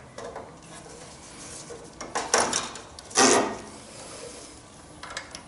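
Handling noise from a wire-wrapped flexible brake line and its metal fittings being connected at a residual check valve and master cylinder: scattered clicks and rubbing, with two louder scrapes about two and three seconds in.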